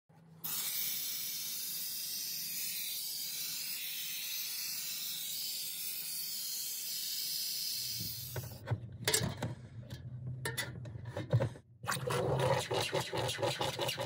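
Steady hiss from a handheld steamer's jet melting frost and ice off a freezer's evaporator coils. About eight seconds in it gives way to a lower hum with irregular clicks and crackles.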